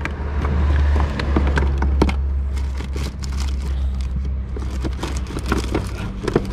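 Rummaging through food packets and plastic bags in a storage compartment: crinkling, rustling and small knocks, over a steady low rumble.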